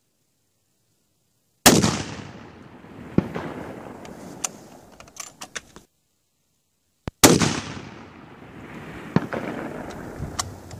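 Two loud shots from a muzzle-braked 7mm Remington Magnum rifle, about five and a half seconds apart, each followed by a long rolling echo. One and a half to two seconds after each shot comes a short distant smack, the bullet hitting the hanging steel target.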